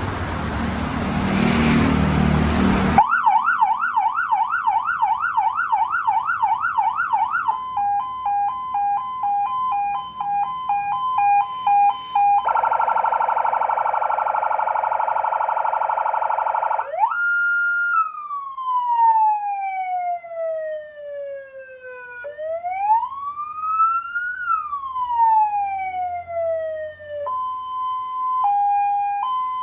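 An electronic vehicle siren stepping through its tones. After about three seconds of harsh noise it gives a fast yelp of about two up-down sweeps a second, then a rapid two-note hi-lo, a buzzy horn tone, and long wail glides (one falling, one rising then falling). Near the end it settles into a slower two-note hi-lo.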